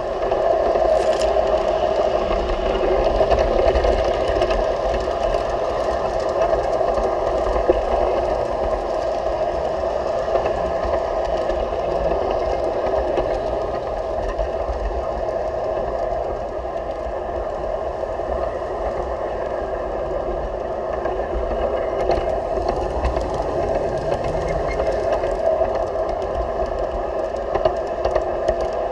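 G scale model train running along outdoor track, heard up close from aboard the train: a steady rattling hum of the wheels on the rails and the drive gearing, with an occasional sharp click.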